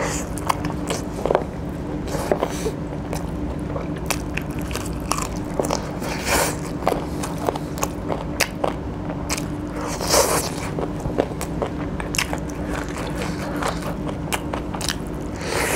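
Close-miked eating: a person biting and chewing chicken from a curry, with many short clicking mouth sounds and a few louder bites. A faint steady low hum runs underneath.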